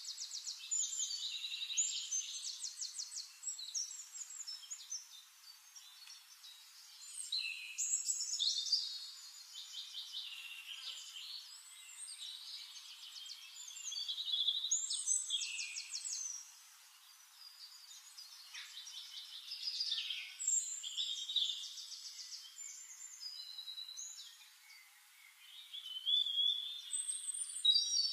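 Songbirds singing: rapid high trills and short chirps in overlapping bouts, with brief lulls between them.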